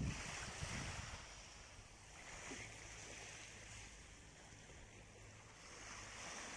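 Small waves washing gently onto a sandy shore, faint and swelling every couple of seconds, with low rumbles on the microphone in the first second.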